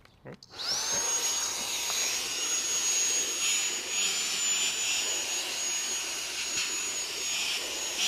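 Eufy HomeVac H20 cordless handheld vacuum switching on about half a second in. Its motor spins up quickly, then runs with a steady high whine and rush of air while its crevice nozzle works along the seam of a cloth car seat.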